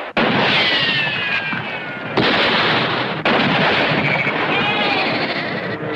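Film-soundtrack gunfire: three sudden shots, the first followed by a falling whine, with sheep bleating from a flock.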